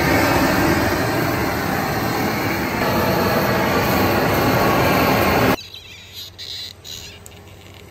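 Propane torch fed from a tank, burning at full flame: a loud, steady rushing noise that cuts off suddenly about five and a half seconds in. After it, faint crackles as the heated steel rod is pressed into the end of a wooden axe handle, making it smoke.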